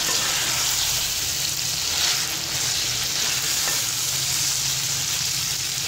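Chicken with bitter gourd, onions, green chillies and tomatoes sizzling in hot oil in a metal pot while a spatula stirs them through: a steady frying hiss.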